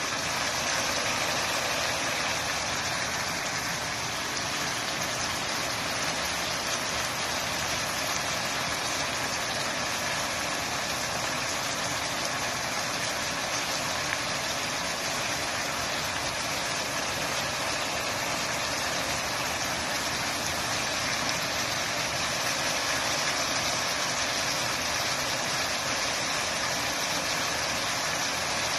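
Steady sizzling of chopped cabbage, ham and bell peppers cooking in a wok, an even hiss with no breaks.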